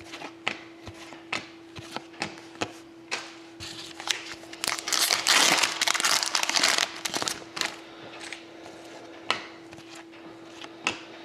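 Trading cards being handled with light taps and clicks, then about four seconds in a foil card-pack wrapper is torn open and crinkled for about two seconds, followed by more light handling of the cards.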